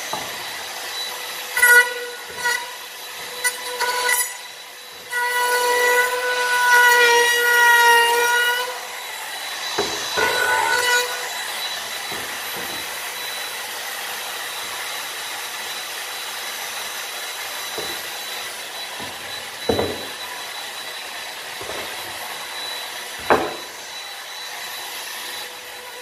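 Compact wood trimmer (palm router) routing the edge of a board: a high-pitched motor whine that starts, stops and dips several times in the first eight seconds, then a steadier rushing cutting noise with a few sharp knocks.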